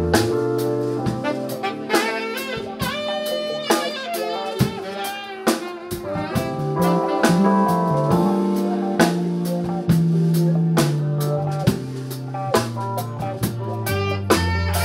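Live funk-jazz band playing a groove: drum kit with regular snare and cymbal hits, a bass line, electric keyboard, electric guitar and saxophone.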